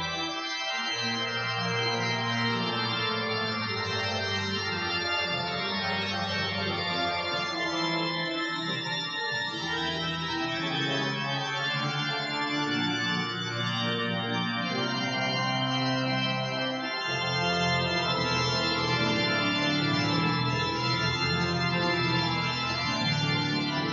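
Organ music: slow, long held chords that change every few seconds, at a steady level.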